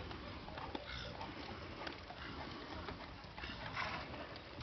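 Faint hoofbeats of a horse trotting on a sand arena over outdoor background noise, with a brief louder rush of noise near the end.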